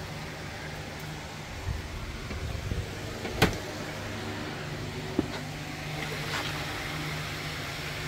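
Hand tools being handled at a tool table: a sharp clink about three and a half seconds in and a smaller one near five seconds, over a steady low hum.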